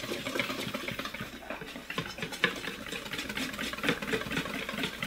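A utensil stirring a batter of buckwheat flour and water in a bowl, scraping the bowl in a quick, steady rhythm.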